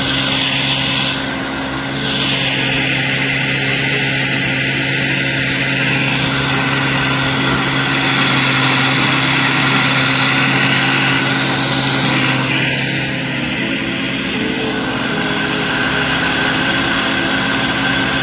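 Outboard motor running steadily at cruising speed, pushing a john boat across the lake, over a rushing hiss of wind and water from the wake.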